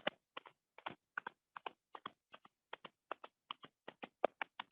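Hands patting the knees in a steady rhythm, about two and a half to three pats a second, each pat landing as two quick slaps close together.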